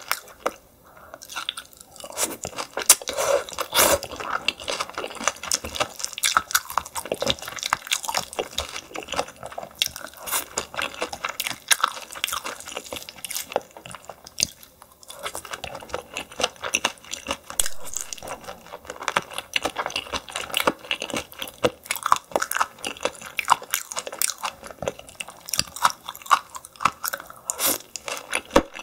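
Close-miked chewing and crunching of steamed yellow stingray, the soft cartilage of the wing giving many quick crisp crunches between the teeth. There are short lulls about a second in and about halfway through.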